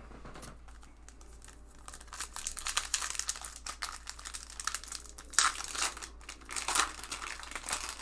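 Foil wrapper of a Topps 2019 Series 1 baseball card pack crinkling as it is torn open at the seal and peeled back from the cards. Quiet for the first couple of seconds, then dense crackling, with two louder crackles in the second half.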